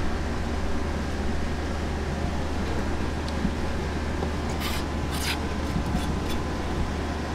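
Steady low machine hum with a faint steady whine, and two short scrapes on a plastic cutting board about five seconds in as mullet fillets are handled.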